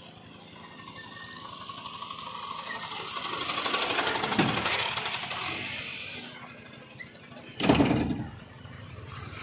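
A motorcycle passing close by, its engine growing louder for about four seconds and then fading away. Near the end comes one loud clunk as the excavator's cab door is unlatched and swung open.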